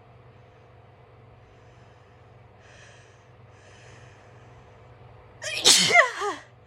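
A woman's loud sneeze about five and a half seconds in: a sudden explosive burst with a voiced cry that falls in pitch. Two breaths come before it as the sneeze builds.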